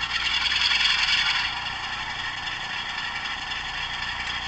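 DCC sound chip in an OO gauge model Class 47 playing the diesel engine sound through its small speaker, thin with little bass, as power is applied just before the locomotive moves off. It is louder for about the first second and a half, then runs steadily.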